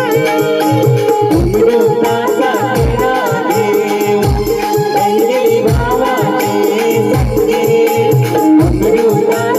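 Live stage band music with singing over keyboards and drums: a steady beat of low drum hits under a sung melody, with a fast, even high percussion pattern throughout.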